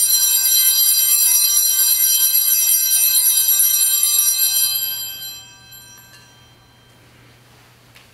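Altar bells rung at the elevation of the consecrated host during Mass: a bright, many-toned bell ringing held steady for about five seconds, then dying away.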